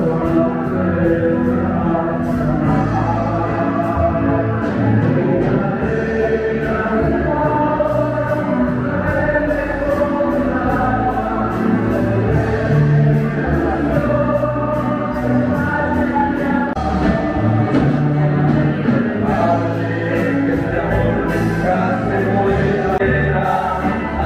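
A choir singing a church hymn, with sustained sung notes over a steady low bass line.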